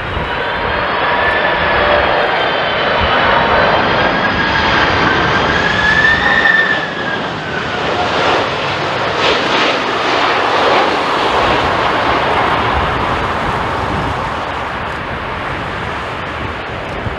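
Jet airliner flying past low on approach: engine whine with several high tones that waver in pitch over a broad rush, the tones fading about halfway through, leaving the broad engine rush.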